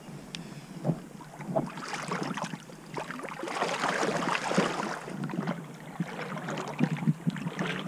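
Shallow river water splashing and sloshing as a carp is held in it by hand and let go, with a thick patter of small splashes in the middle.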